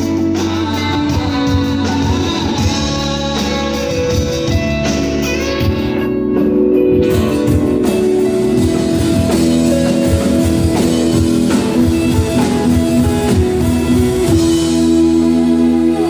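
Live pop-rock band playing through a PA: electric and acoustic guitars, bass, keyboard and a drum kit. Near the end the band holds a ringing chord with the drumming thinning out.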